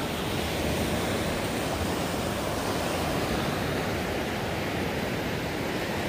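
Small surf washing steadily onto a sandy beach, an even, unbroken noise.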